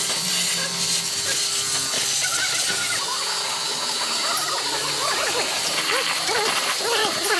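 Hand ratchet clicking as bolts are worked on a bare 4x4 chassis frame, over a steady hiss. A run of short squeaky chirps comes in the second half.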